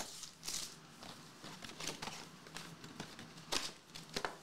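Foil-wrapped trading-card packs crinkling as they are taken out of an opened cardboard hobby box and stacked, in a few short rustles, the loudest near the end.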